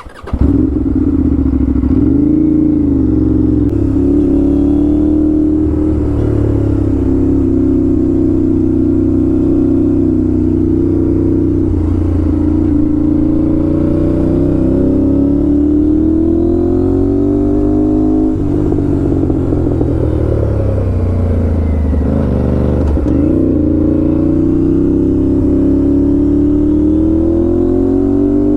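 Aprilia RS 457's parallel-twin engine with an SC Project aftermarket exhaust, running loud under way. Its pitch climbs and drops several times as the rider works the throttle and shifts gears.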